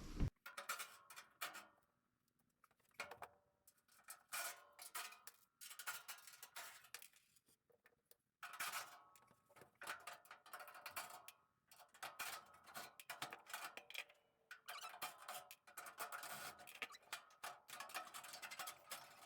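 Faint, irregular clicks, knocks and light metallic clatter, with short silent gaps between them: quiet hand work on the truck's front-end sheet metal and fasteners.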